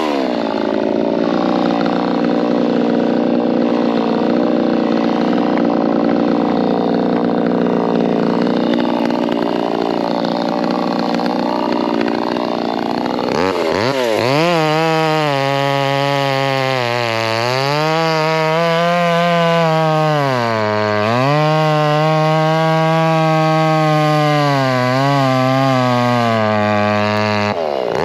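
VEVOR 58cc two-stroke gas chainsaw running at high revs while cutting wood. The engine note dips and recovers several times as the chain loads in the cut, with one quick drop and rise about halfway through.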